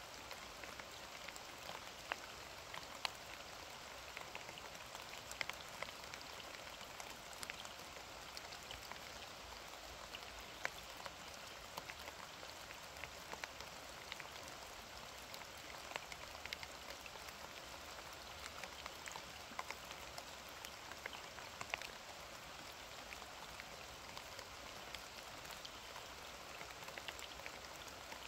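Steady rain falling, with many sharp individual drops pattering close by.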